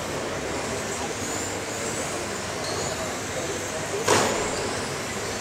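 Radio-controlled touring cars racing round a carpet track, the high whine of their motors rising and falling over the hall's steady background noise. A single sharp knock about four seconds in.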